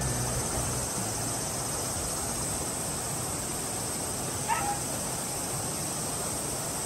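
Steady outdoor background hiss with a constant high drone. One short, warbling animal call comes about four and a half seconds in.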